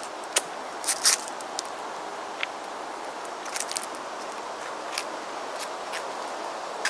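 Footsteps on a forest floor: dry leaves and twigs crackling underfoot in irregular sharp clicks, a small cluster about a second in and another around three and a half seconds, over a steady background hiss.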